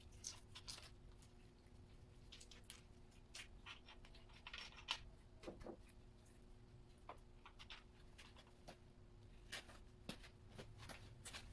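Faint, scattered clicks, taps and rustles of hand work on a partly stripped small-block V8, over a steady low hum.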